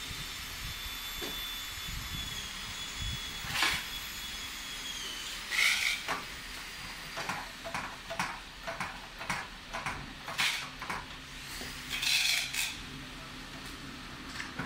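Metal clicks and knocks from a boat captain's seat being worked by hand and foot: its folding steel footrest and the height-adjustment lever on the pedestal. The knocks come singly at first, then as a run of quick clicks in the middle, with a short scraping rattle near the end.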